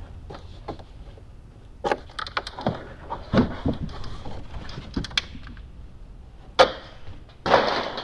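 Felt carpet liner being pulled up and out of a Tesla Model X frunk's plastic tub: irregular rustling, scraping and small clicks, a sharp knock about six and a half seconds in, and a louder rustling swish near the end.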